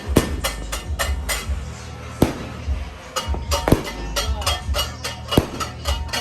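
New Year fireworks and firecrackers going off: a rapid, irregular run of sharp bangs and crackles, with a few much louder booms.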